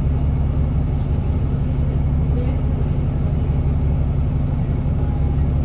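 London bus engine idling steadily, with no change in pitch or speed.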